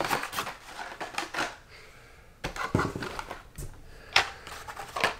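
Hot Wheels carded cars being handled: plastic blister packs and cardboard backs rustling, with a scatter of sharp clicks and taps at irregular intervals.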